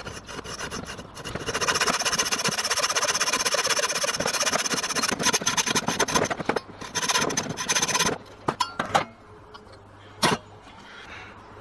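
Hacksaw cutting through the aluminium runners and risers of a sand-cast ball joint, fast steady sawing strokes. The sawing stops about eight seconds in, and a few light knocks follow, with a single sharp knock near the end.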